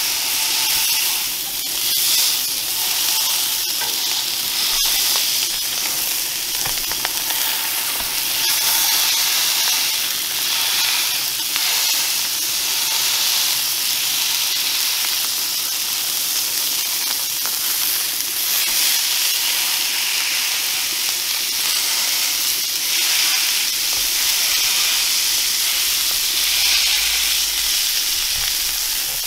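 Ground beef smash-burger patties sizzling steadily on the hot steel cooktop of a Blackstone 28-inch propane griddle as they are pressed flat with a metal spatula.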